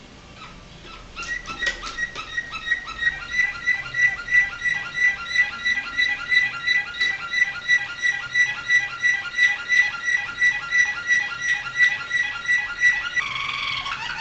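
Canary singing a 'flawta' (flute) song: after about a second of quiet it holds a long, steady run of the same clear note repeated about four times a second, then switches to a faster trill near the end.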